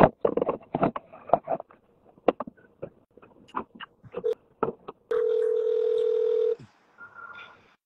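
A steady electronic phone tone sounds for about a second and a half, about five seconds in, followed by a fainter, higher tone. Before it come scattered short clicks and muffled scraps of sound.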